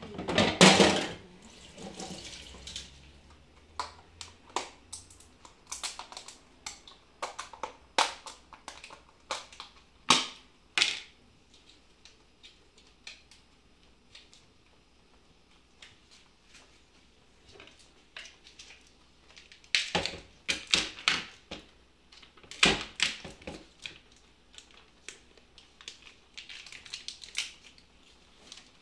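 Irregular clicks, taps and scrapes of a utensil against a plastic ricotta tub and a frying pan as ricotta is spooned into pepper sauce. The loudest cluster of knocks comes right at the start.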